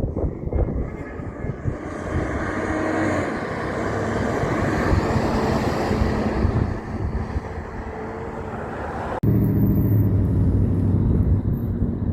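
Heavy truck driving past: a swelling rush of engine and tyre noise that builds toward the middle and fades. About nine seconds in it cuts abruptly to a steadier low diesel engine drone.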